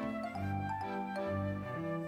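Background music: an instrumental tune with notes changing every half second or so over a bass line.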